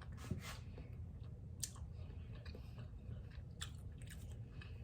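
A person quietly chewing a mouthful of cooked food, with a few faint clicks.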